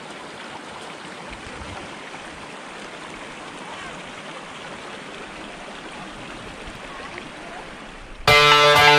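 Steady rushing noise, like a stream of running water. Loud guitar music cuts in abruptly a little before the end.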